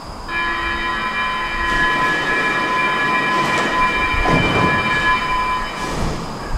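Stockholm metro train standing at an underground platform. A steady whine of several high tones begins just after the start and stops near the end, with a short low hiss about four seconds in.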